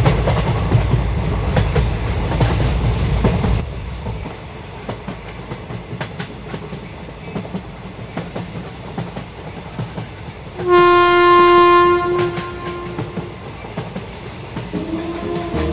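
Train running, heard from aboard: a low rumble that is louder for the first few seconds, with rapid wheel clicks on the rail joints. The locomotive's horn sounds once for about a second and a half, about eleven seconds in.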